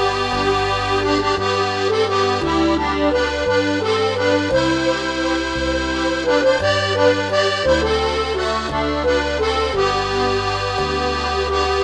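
Accordion music: a sustained melody over low bass notes that change about once a second, at a steady level.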